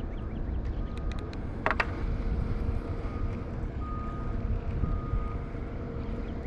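Distant heavy machinery: a low rumble with a steady hum, with a vehicle's reversing beeps sounding faintly on and off. A few sharp clicks come about a second and a half in.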